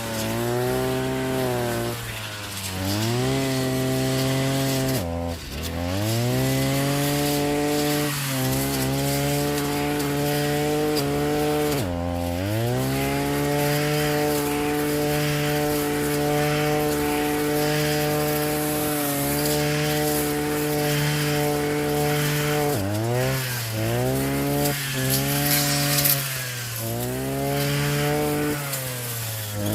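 Small two-stroke engine of a handheld cutting tool running at high speed, its pitch dipping sharply as the blade bites into wood and then climbing back, twice in the first half and several times in quick succession near the end.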